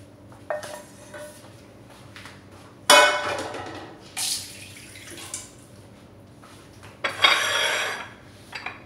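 Dishes and utensils clinking and clattering: a handful of separate knocks, the loudest about three seconds in and another, longer clatter near the end.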